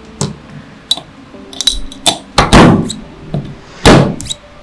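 Metal engine parts clinking and knocking as cylinder liners are fitted into the aluminium block of a Toyan FS-L400 inline-four model engine and pushed down with a metal tool. A string of sharp metal knocks, the loudest two about two and a half and four seconds in, each ringing briefly.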